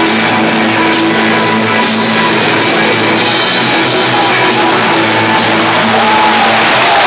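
Rock music played over a football stadium's public address system, with crowd noise and clapping beneath it.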